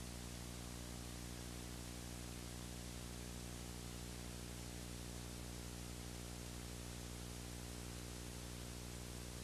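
Steady hiss with a low, even electrical hum underneath and nothing else: the background noise of an old video recording.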